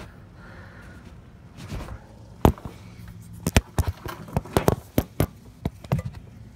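A quick series of sharp clicks and knocks, about a dozen over three seconds, from the camera being repositioned and an oil filter wrench being fitted onto the oil filter.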